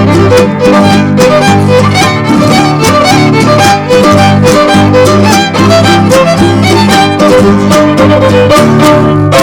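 Background electronic music with a steady beat and a bright string-like melody over a bass line.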